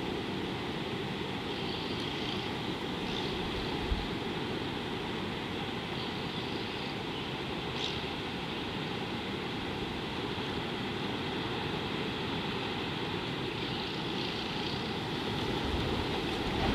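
Steady outdoor background noise with a low rumble, with a few faint, brief high chirps scattered through it.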